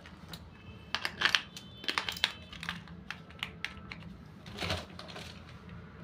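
Small plastic clicks and taps as batteries are pushed into a toy remote control's battery compartment and its plastic casing is handled, a cluster of clicks about one to two seconds in.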